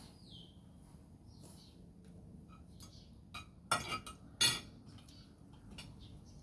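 Tableware clinking during a meal: two loud clusters of clinks a little under four seconds in and about half a second later, with a few fainter clicks around them.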